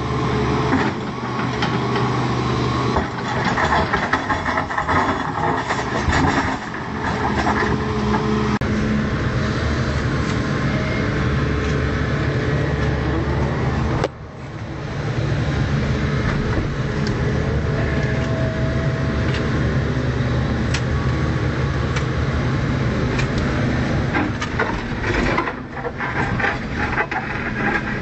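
Volvo EC210C excavator's diesel engine running steadily under working load, with knocking and scraping from the digging through roughly the first third. The sound drops out briefly about halfway, then the engine runs on steadily with a faint hydraulic whine.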